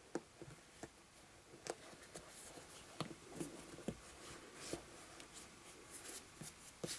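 Faint handling noises as a vinyl doll leg is pressed and worked into the doll's body by hand: scattered light clicks and soft rubbing, about one every second or so.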